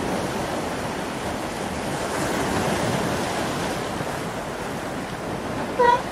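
Steady rushing ocean water noise, like surf. Near the end a short, pitched animal-like call cuts in.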